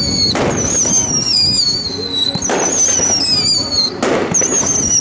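A 24-shot, 200-gram consumer firework cake firing three shots about one and a half to two seconds apart. Each shot is a sharp bang followed by a long whistle that falls steadily in pitch.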